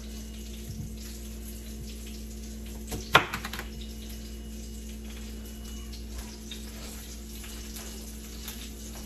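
Salmon fillets sizzling steadily in olive oil in a skillet. A chef's knife knocks once, loudly, on a plastic cutting board about three seconds in, with a few faint cutting taps around it.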